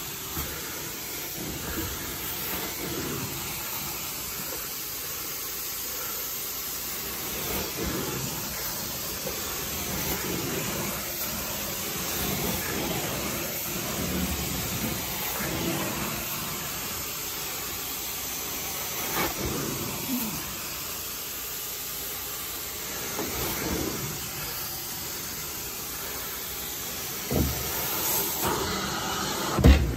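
Carpet-cleaning extraction wand spraying and sucking water from the carpet: a steady hiss that swells with each pass of the wand every couple of seconds. A sharp knock just before the end.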